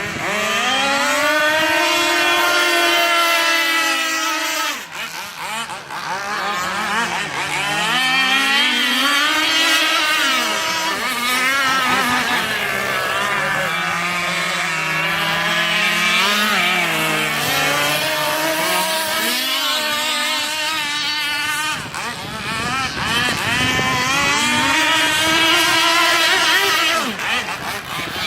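Petrol engine of a radio-controlled catamaran boat running at speed, its pitch rising and falling again and again as the throttle is worked, with brief dips in loudness twice.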